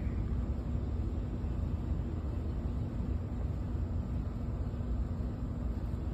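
Steady low rumble of outdoor background noise with a faint constant hum, and no distinct events.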